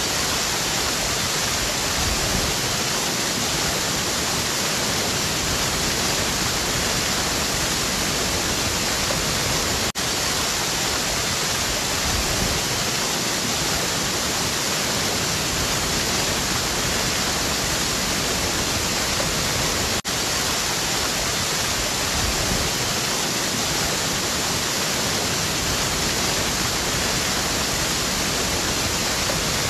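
Waterfall rushing in a steady, even hiss, with two very brief dips about ten seconds apart.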